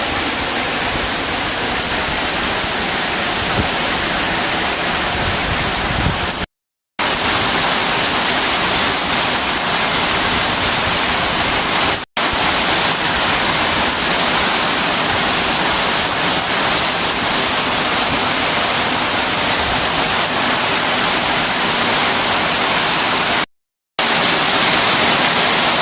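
Heavy rain pouring down in a steady, dense hiss, broken by three brief silences.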